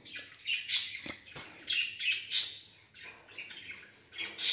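Prawns frying in hot oil in a pan, stirred with a wooden spatula: uneven bursts of sizzling and scraping with each stroke, with some short squeaky, chirp-like sounds.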